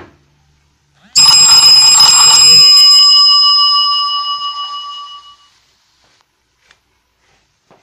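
A single loud metallic ring, bell-like, struck about a second in and fading away over about four seconds.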